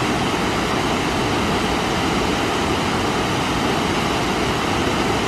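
Cummins Falls, a tiered waterfall, rushing steadily: an even, unbroken wash of falling-water noise.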